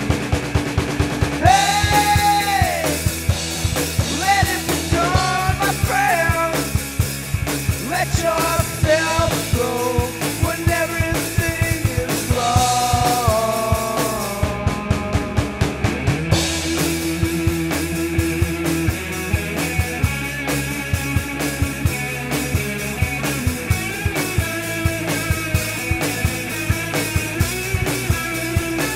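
Rock music from a band: a steady drum-kit beat under electric guitar, with a melodic line that bends in pitch through the first half.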